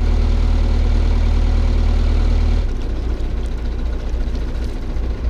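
A narrowboat's diesel engine running with a steady low drone. About two-thirds of the way in it turns rougher and a little quieter, with a fast beat.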